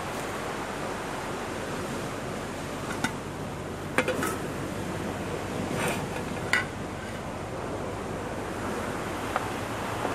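Steady wash of small surf breaking on a sandy beach. Over it come a handful of short knocks and clatters from about three to seven seconds in, the loudest near four seconds, as a metal cooking pot is set on a portable gas camping stove.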